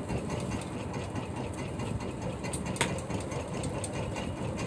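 Fishing boat's engine idling steadily, with one short click a little under three seconds in.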